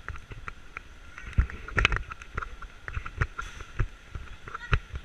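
Footsteps of someone walking along a paved sidewalk at about two steps a second, each step a low thump with a click, over a steady hum of street traffic and people.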